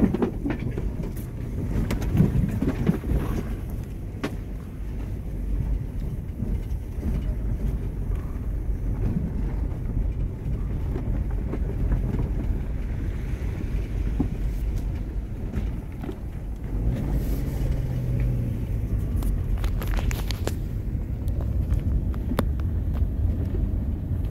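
A vehicle driving along a road, with a steady low rumble of engine and road noise and a few sharp knocks and rattles.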